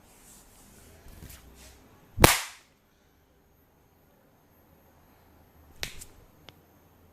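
Sharp hand-made smacks from a barber's head and neck massage: one loud crack about two seconds in, then a quieter double click and a small tick near the end.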